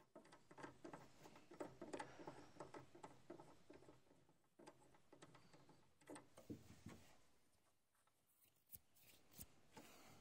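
Faint rustling and small clicks of a hand working among the wiring behind the trunk trim of a Mazda MX-5, thickest in the first few seconds and thinning to a few scattered clicks near the end.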